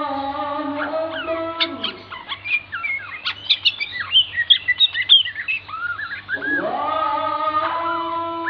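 A songbird's rapid, varied run of chirps, whistles and trills, played as a lure recording to get a young white-rumped shama singing. A steady droning tone slides down and fades as the song starts, and slides back up to hold steady near the end.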